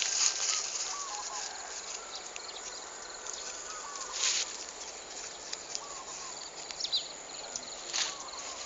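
Outdoor rural ambience with small birds chirping on and off, short curved whistles and quick high notes, over a steady hiss. Two brief rustles stand out, about four and eight seconds in.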